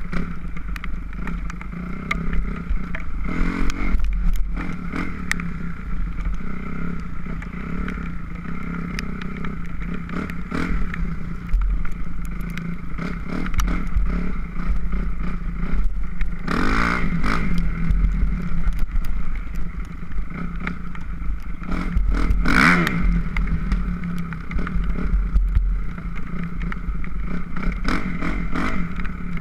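2006 Kawasaki KX250F's four-stroke single-cylinder engine running as the dirt bike is ridden, with two louder revs about seventeen and twenty-two seconds in. Scattered knocks from the bike sound over the engine.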